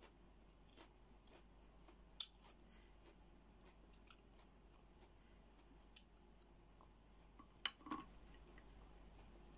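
A few sharp clicks and cracks of cooked brown crab shell being picked apart by hand, one about two seconds in and a closely spaced pair near the end, over near silence.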